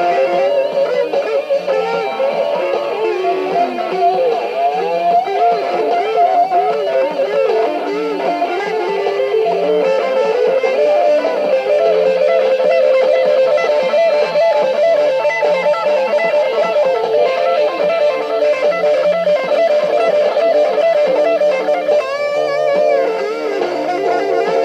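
Electric guitar playing a melodic lead line, its notes bending and wavering in pitch.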